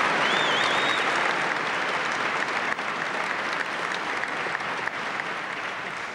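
Large hall audience applauding, the clapping slowly dying away.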